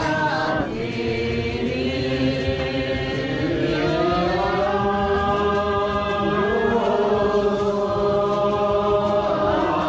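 A group of people singing together in unison, holding long drawn-out notes that slide from one pitch to the next.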